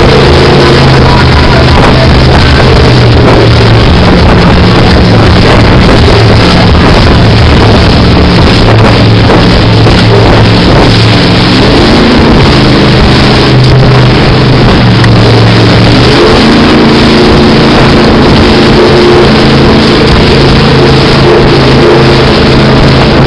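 Edge Marine Velocity LS jet boat running at speed, heard from on board: a steady engine and jet-drive drone under loud rushing water, spray and wind. Music plays along with it.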